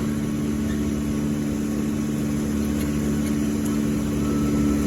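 Engine of heavy tree-removal machinery running steadily at a constant speed, a low even hum.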